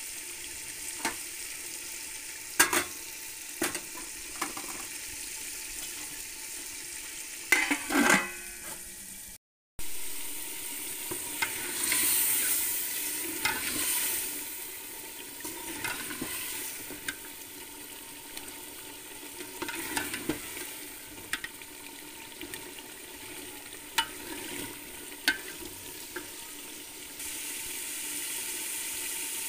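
Chicken pieces and tomatoes sizzling in oil in an aluminium pot while a metal ladle stirs them, with repeated sharp clinks and scrapes of the ladle against the pot. The sound cuts out briefly about a third of the way in.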